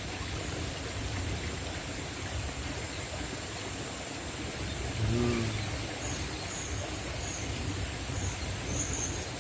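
Insects in the rice fields keep up an unbroken high-pitched drone over a steady low rushing noise, with a brief voice about five seconds in.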